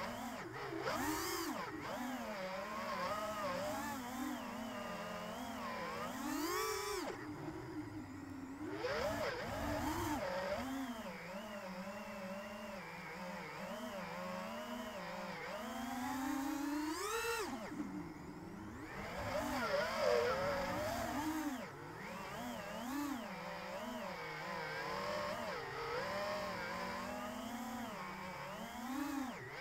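FPV quadcopter's brushless motors and propellers whining, the pitch constantly swelling and dipping with the throttle. Twice, about a quarter of the way in and just past halfway, the whine sweeps sharply upward and then briefly thins out as the throttle is cut.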